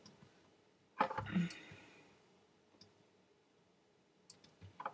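Computer mouse clicks while placing spline points: a louder knock about a second in, then a few short, sharp clicks, bunched near the end.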